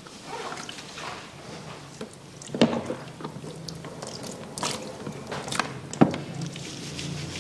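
Wet hair being handled and rinsed with a handheld shower sprayer over a salon shampoo basin: soft squishing and water sounds with scattered small taps. Two sharp knocks come about two and a half seconds in and at six seconds, the second the loudest.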